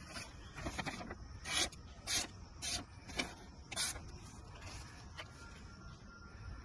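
Rough rasping, scraping strokes, about six in a row at roughly one every half second, then stopping.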